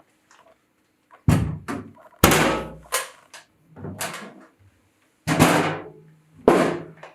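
Metal drill parts and adapters clunking as they are handled and set down: about six separate knocks over several seconds, some ringing briefly.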